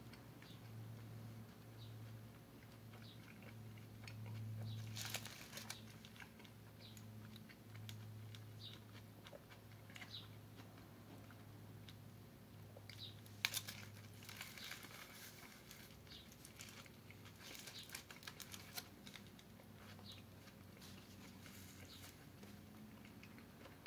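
A person quietly chewing a burrito, with a food wrapper crinkling and scattered small clicks and rustles, thickest about five seconds in and again in the middle.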